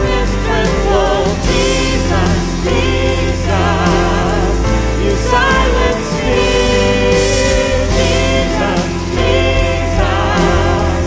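Contemporary Christian worship music: a band playing with bass and regular cymbal hits under a sung, wavering melodic vocal line.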